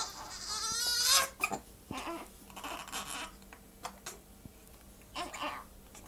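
Infant crying and hiccuping: a wavering cry in the first second or so, then a few short squeaky hiccup sounds a second or more apart.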